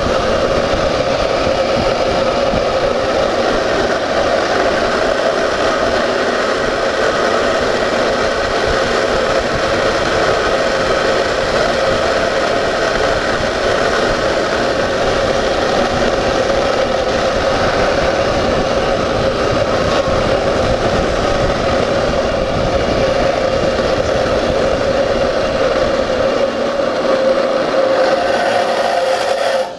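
Steel ball-bearing wheels of a gravity-racing cart rolling fast on asphalt: a loud, steady rolling noise with a constant hum in it.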